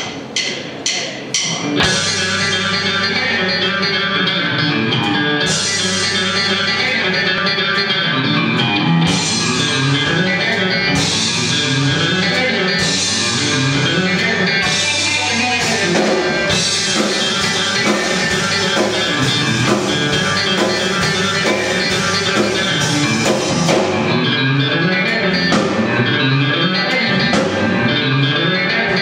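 Live rock band playing an instrumental on electric guitar, bass guitar and drum kit. A few short guitar strokes open it, and the full band comes in about two seconds in with a steady beat.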